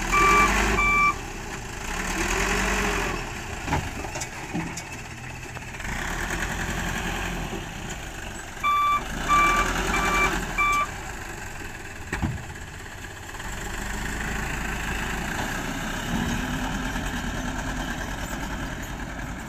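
Small dump truck's engine running, with the revs rising and falling a few times, as the tipper unloads soil and the truck moves off. A reversing beeper sounds in two short runs of about two beeps a second, one at the start and one about nine seconds in.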